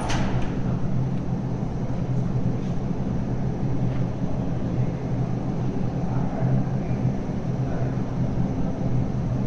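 MTR M-Train running through an underground station platform without stopping: a steady low rumble, with one sharp click right at the start.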